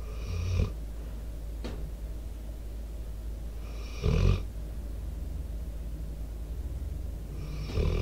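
American Staffordshire Terrier/pit bull snoring in its sleep: three snores about four seconds apart, the middle one loudest.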